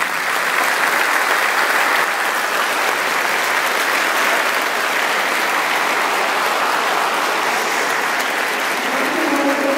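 Large crowd applauding steadily in a big atrium hall, right after a speech ends with thanks.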